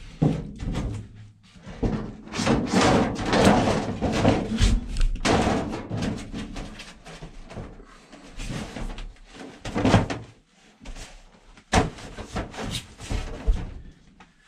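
Thin embossed aluminium sheet being handled and pressed into place by hand: irregular wobbling, rustling and knocking of the metal, with a few sharper thuds against the wooden framing.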